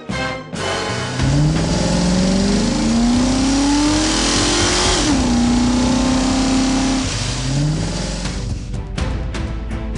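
Cartoon sound effect of a vehicle engine revving up in a long rising sweep, then holding a steady pitch, then rising again, over a rushing noise. A run of sharp clicks comes in near the end.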